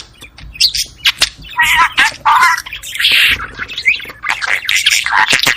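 Budgerigars chattering and warbling: a rapid jumble of chirps, squawks and clicks with short warbled phrases.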